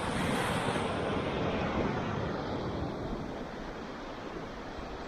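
Ocean surf washing on a rocky shore, mixed with gusting wind: a rush that swells over the first two seconds, then eases to a steadier wash.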